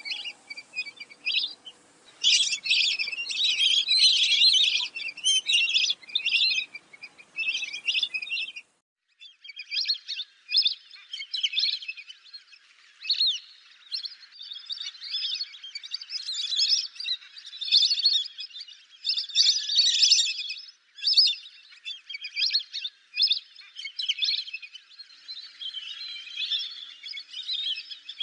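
Lesser whistling ducks calling together: a dense run of high, repeated whistled notes from several birds, with a short break about nine seconds in.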